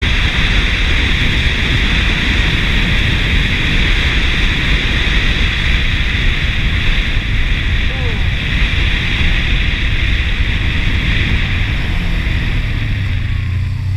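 Wind rushing over the microphone of a riding Kawasaki Ninja motorcycle, a loud steady roar that buries the engine. Near the end the wind eases and the motorcycle engine's low steady note comes through as the bike slows.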